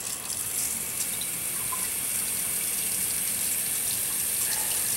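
Cold water running from a newly installed Moen pull-down kitchen faucet, through its aerator, into a sink basin: a steady splashing hiss that builds slowly as the flow is opened up. This is the first run of water through the new faucet after the supply is turned back on.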